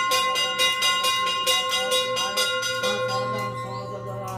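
Hanging brass temple bells rung rapidly, several strikes a second, with a bright sustained ringing. The strikes stop about three seconds in and the ringing dies away.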